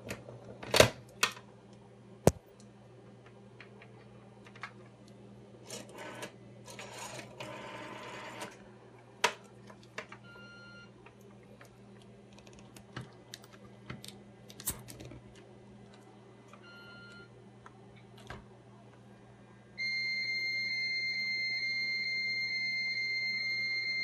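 Rotary telephone handset being picked up and dialed, then pressed into the rubber cups of an acoustic coupler modem, with scattered clicks and knocks. About twenty seconds in, a steady high modem carrier tone starts and holds: the 300-baud line connecting.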